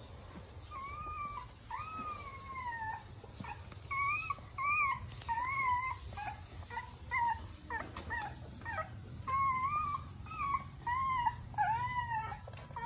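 Nursing puppies whimpering: a dozen or so short, high whines, each rising and falling in pitch, coming every second or so.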